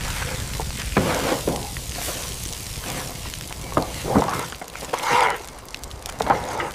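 Campfires and cooking pots making a steady sizzling hiss, with scattered knocks and clatters of objects being handled.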